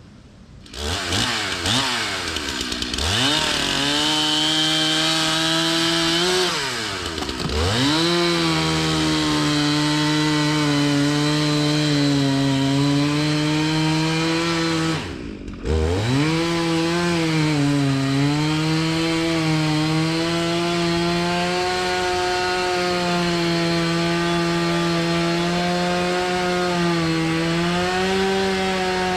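Two-stroke Stihl chainsaw running at full throttle while cutting through storm-felled tree wood. It revs up about a second in, drops in pitch and picks back up at around seven seconds, cuts out briefly about halfway, then holds high and steady.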